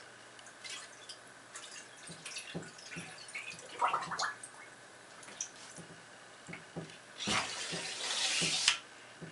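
A model submarine's ballast blow: compressed gas is released into the water, a loud hissing, bubbling burst about a second and a half long, starting some seven seconds in. Before it come small drips and splashes of water around the hull.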